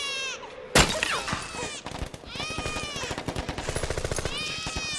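A newborn baby crying in repeated high, arching wails. About a second in, a sudden very loud gunshot or blast breaks in, and rapid automatic gunfire keeps crackling under the cries.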